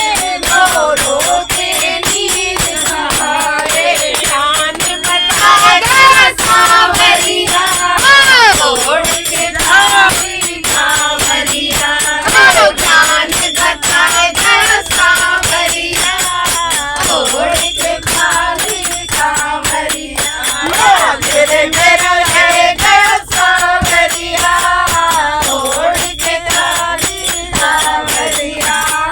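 Group of women singing a devotional bhajan together, with a steady rattling hand-percussion beat keeping time.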